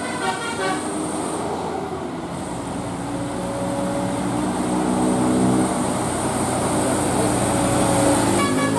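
Bus engine and road noise as tour buses pass, with a multi-trumpet telolet air horn sounding: a quick run of short horn notes at the start, a held chord of several notes through the middle, and a rising note near the end.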